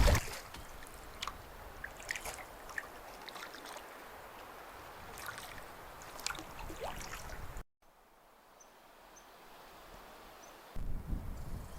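Faint water trickling and dripping with scattered small clicks, typical of a canoe paddle moving through calm water. It breaks off abruptly about two thirds of the way through. Near the end a low rumble of wind comes in.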